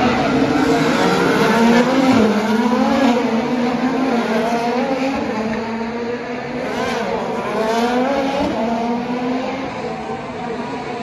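IndyCar open-wheel race cars running past on a street circuit, their engines rising and falling in pitch several times as the cars accelerate, shift and brake.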